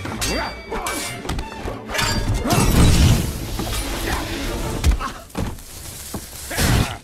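Film fight soundtrack: orchestral score under sword-fight sound effects, with clashing blades, thuds and a shattering crash.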